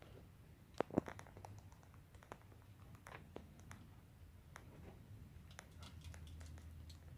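Faint scattered rustles and crackles of straw mushroom bedding being handled, with two sharper clicks about a second in.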